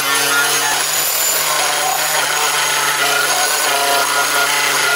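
Electric angle grinder running steadily under load, grinding welds flush on a steel car trunk lid where holes were welded shut.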